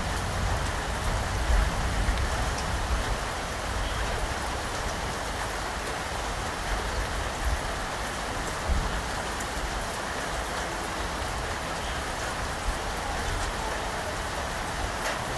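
Steady rain falling, an even hiss of many drops, with a few low rumbles in the first few seconds and again about nine seconds in.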